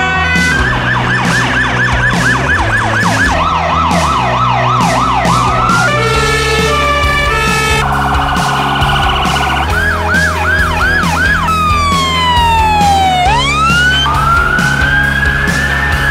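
A quick succession of different emergency-vehicle sirens from ambulances and police vans, changing every couple of seconds: fast yelping sweeps, slower wails, a two-tone hi-lo, a rapid warble, then a long falling wail that turns and rises again near the end.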